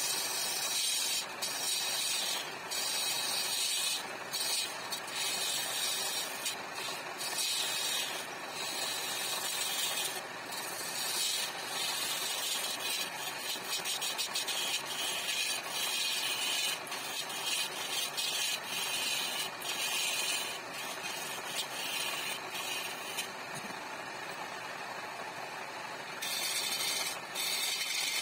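Wood lathe spinning a wooden sofa-leg blank while a turning chisel cuts into it: a steady hiss of the cut that surges and dips as the tool is pressed and eased, softer for a few seconds near the end.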